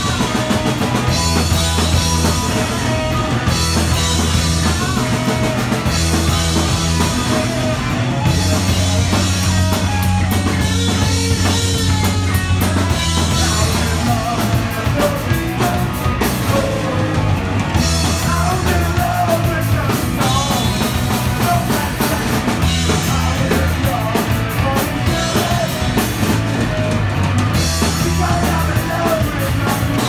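Rock band playing live and loud: drum kit, electric guitar and bass, with a singer on vocals.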